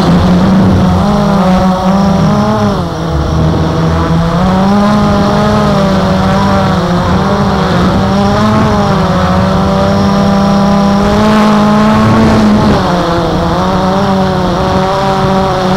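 Blade 350 QX quadcopter's four brushless motors and propellers whining in flight, heard from on board. Their pitches rise, fall and cross one another as the throttle changes. The pitch drops about three seconds in, climbs again, and drops once more near the end.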